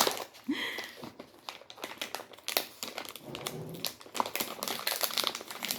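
Plastic snack packaging crinkling as it is handled, a run of quick, irregular crackles.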